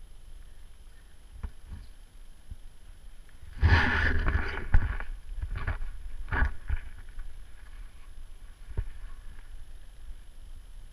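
Rustling and knocking from a camera being handled, over a steady low rumble on its microphone. A loud rustling burst starts about three and a half seconds in and lasts over a second, with a shorter one a couple of seconds later and a sharp knock near the end.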